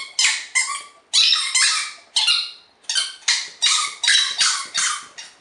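Squeaker ball from inside a plush toy squeaking over and over as a dog chews it, two to three short high-pitched squeaks a second with a couple of brief pauses.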